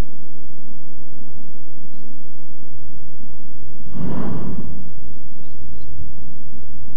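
Steady low outdoor rumble, with one short rushing blast from a hot-air balloon's propane burner about four seconds in. Faint high chirps sound over it.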